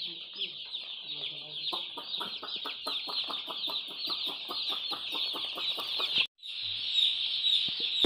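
A dense chorus of hundreds of day-old broiler chicks peeping, with many short, high, falling cheeps overlapping continuously. The chorus drops out for a moment about six seconds in, then resumes.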